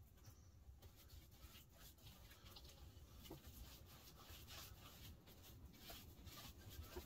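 Near silence: faint, scratchy strokes of a paintbrush spreading polyurethane along pine window trim, over a low steady rumble.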